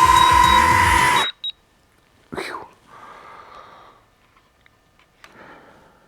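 Quadcopter drone's motors and propellers whining steadily alongside a repeating high beep, then cutting off abruptly about a second in as the drone lands; after that, faint rustling and a single sharp knock.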